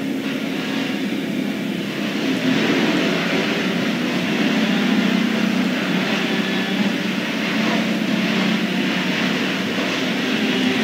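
Delivery truck's engine running steadily, getting a little louder about two seconds in.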